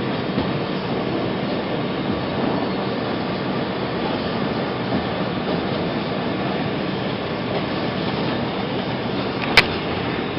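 Subway train running, a steady rumble and rattle of rail noise, with one sharp click near the end.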